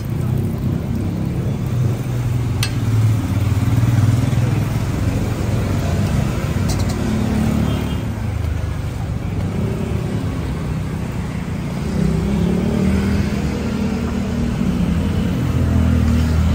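Road traffic: motor vehicle engines, motorcycles and cars, running and passing close by, their low hum rising and falling over several seconds. There is a sharp click about three seconds in and another near seven seconds.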